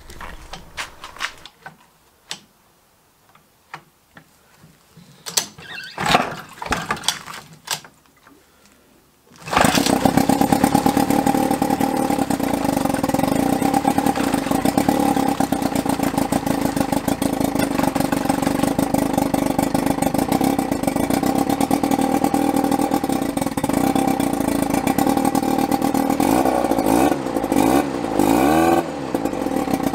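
Mercury 110 two-cylinder two-stroke outboard motor, lower unit in a bucket of water, catching about nine seconds in after a few short bursts and then running steadily with the propeller churning the water; the revs rise and fall near the end. It is the first run of a motor that has sat unused for a long time.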